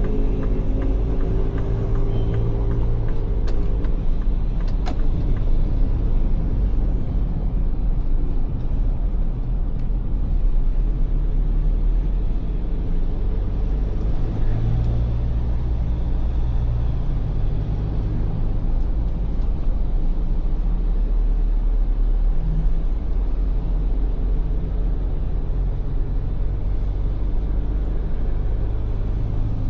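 Ford Everest SUV driving: a steady low engine and road rumble, with a brief higher-pitched engine note in the first few seconds.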